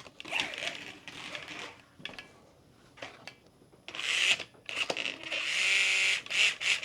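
Slot car's small electric motor whirring in short bursts of throttle, its pitch rising and falling, louder and longer in the second half.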